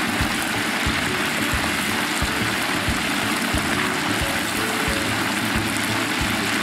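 Battered chicken pieces deep-frying in a wok of hot oil, the oil bubbling and sizzling steadily. A soft low beat, about one and a half a second, runs underneath.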